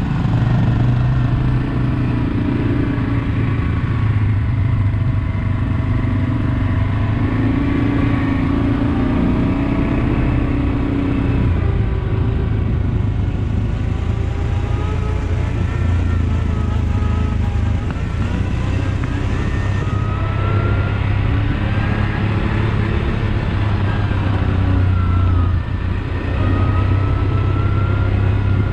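ATV engine running continuously under way, its low hum shifting in pitch with the throttle, with a fainter higher whine that rises and falls through the second half.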